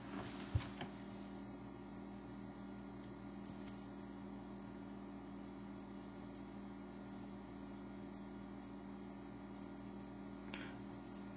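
Faint steady electrical hum, with a light click about half a second in and another faint one near the end.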